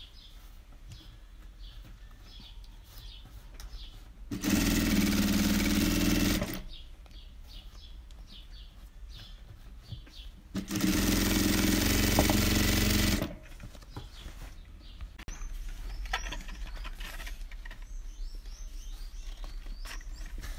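Industrial sewing machine running in two steady bursts of about two seconds each, stitching bias binding along a fabric edge, with quieter pauses between as the fabric is repositioned.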